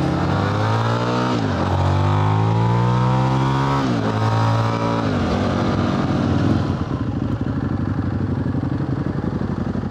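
Ronin 47 motorcycle's Buell 1125 V-twin engine accelerating hard, revs climbing and dropping sharply twice at upshifts. From about two-thirds in it settles into a lower, lumpy, pulsing run as the bike slows.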